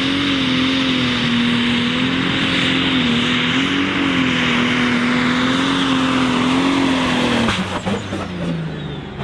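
Pro Stock pulling tractor's engine running flat out under load as it drags the weight-transfer sled, its pitch holding high with slight wavering. About seven and a half seconds in the pitch drops sharply to a lower, rougher running, with a few knocks, as the pull comes to a stop.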